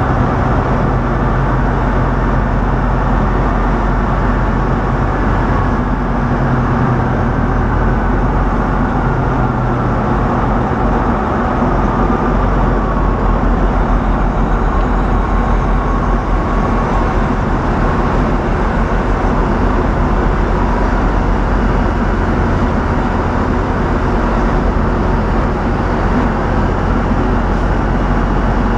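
Diesel semi-truck engine running steadily with road and cab noise; a faint whine slowly falls in pitch through the middle.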